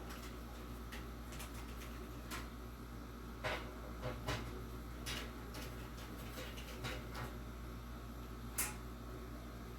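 Scattered sharp clicks and clinks of fan parts and tools being handled during box-fan disassembly, a handful of separate knocks with the loudest near the end, over a steady low hum.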